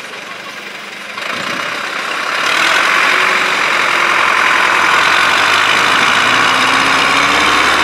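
Farm tractor's diesel engine working hard under load as the tractor climbs out of a water-filled pit up a steep dirt bank. It grows louder about one to two seconds in, then runs loud and steady.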